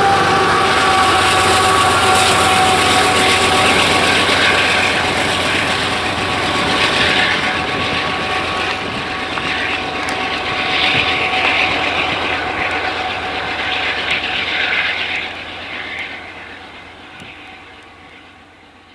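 Diesel-electric locomotive on an empty coal train passing close, its engine running with a steady turbocharger whine. The sound holds, then fades away over the last few seconds as the train pulls off.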